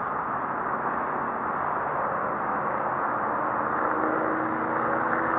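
Jet noise from a Boeing 747-400 freighter's four GE CF6 turbofans as it climbs away after takeoff: a steady rushing noise that swells slightly, with a few steady hum tones coming in near the end.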